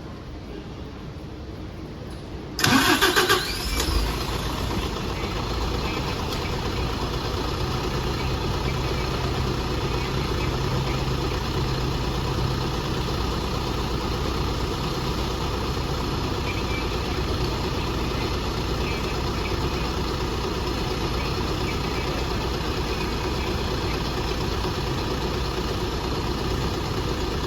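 Route bus diesel engine being started: the starter cranks loudly for about a second, two and a half seconds in, then the engine catches and settles into a steady idle.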